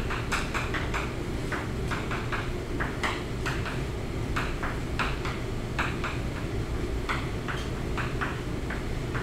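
Chalk writing on a blackboard: a quick, irregular run of taps and short scratches as each stroke is made, over a steady low room hum.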